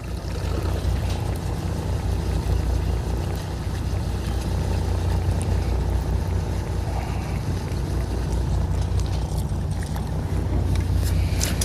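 Fishing boat's engine running steadily, a low hum with a light wash of wind and water noise over it.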